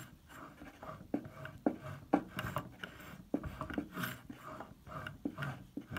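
Hand-turned replica of an Elias Howe shuttle sewing machine stitching through leather: irregular mechanical clicks and light knocks from the needle bar and shuttle, roughly one to two a second.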